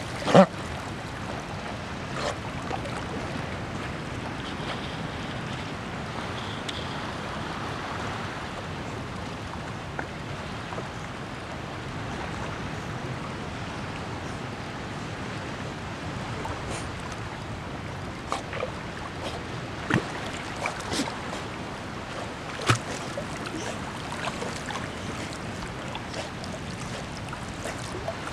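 Steady wash of wind and lapping water, with wind buffeting the microphone. A sharp knock comes just after the start, and a few fainter brief clicks come later.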